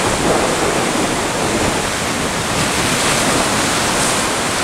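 Sea surf breaking and foaming against shoreline rocks: a loud, steady rush of churning white water.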